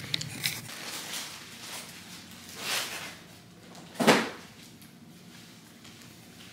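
Handling noises while packing: a few clicks at the start as the camera is set down, then rustling as clothes and a backpack are pulled about, with a louder thump about four seconds in.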